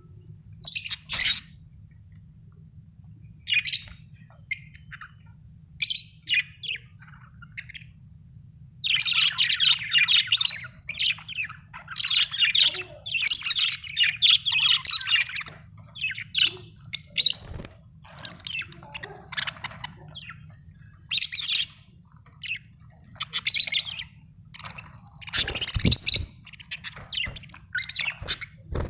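Budgerigars chirping and chattering in irregular bursts, with a few squawks, busiest in a long run of warbling chatter from about 9 to 15 seconds in.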